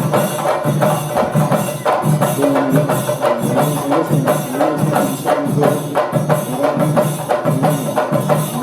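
Percussion-led music: evenly repeated jingling and clacking strikes under a wavering pitched melody line.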